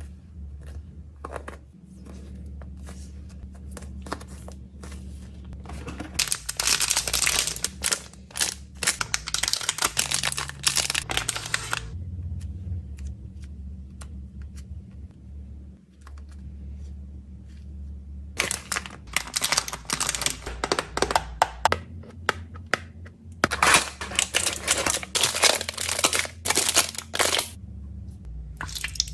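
Plastic snack packaging crinkling and tearing as it is opened and handled, in three long spells of dense crackling, over a steady low hum.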